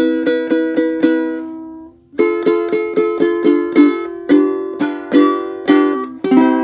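Ukulele strummed through a simple repeating chord progression, with quick even strums about four a second. About a second and a half in, a chord is left to ring and fade; then the strumming starts again and changes chord twice.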